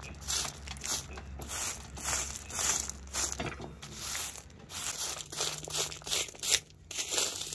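Broom sweeping loose crushed-stone ballast off the ties of a miniature railway track, a quick run of brushing strokes about two a second.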